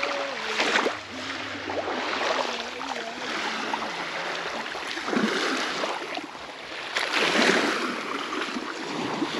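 Small waves washing onto a sandy beach, a steady wash that swells twice in the second half, with a faint wavering hum in the first few seconds.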